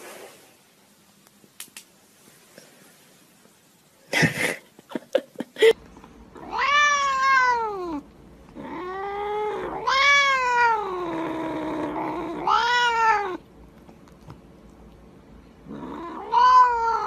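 Domestic cat meowing loudly: four long, arching meows, the second drawn out over about three seconds. A few sharp knocks and rustles come just before the first meow.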